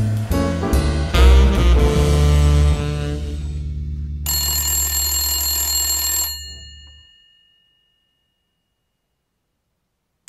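Jazz theme music ends on a held low note. About four seconds in, a telephone bell rings once for about two seconds, then stops, and a few seconds of silence follow.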